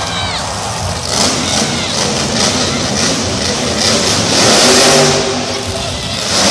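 Grave Digger monster truck's supercharged V8 revving hard as the truck drives across the dirt arena floor, swelling loudest about four to five seconds in.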